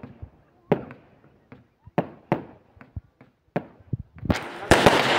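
Consumer fireworks shot up from the ground and bursting overhead: irregular sharp bangs, about two a second, then from about four seconds in a louder, dense crackling with rapid bangs.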